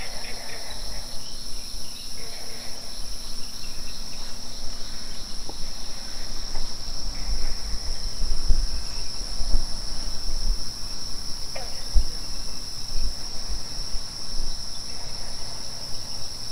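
Steady, high-pitched chorus of night insects such as crickets trilling without a break. Intermittent low rumbles sound on the microphone, loudest around the middle.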